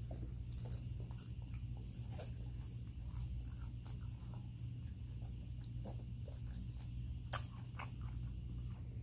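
Close-miked chewing of a fried egg roll: a steady run of small wet mouth clicks and crunches over a low steady hum, with one sharper click a little after seven seconds in.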